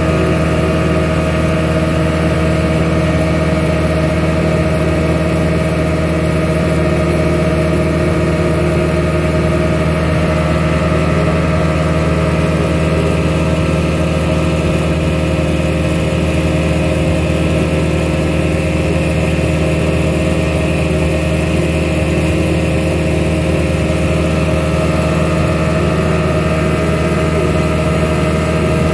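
Speedboat engine running at a steady speed, a loud, even drone that neither rises nor falls.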